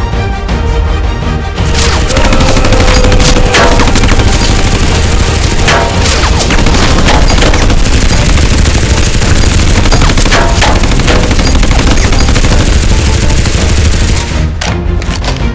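Background music, then, about two seconds in, a long loud stretch of rapid, overlapping shots like a fusillade over the music. It gives way to music alone near the end.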